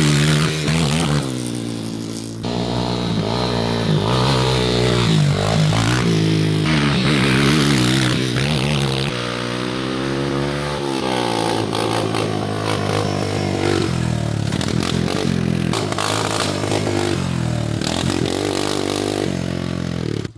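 Honda three-wheeler ATV engine revving up and down as it is ridden, its pitch rising and falling again and again. It eases off briefly about two seconds in, and the sound cuts off suddenly at the end.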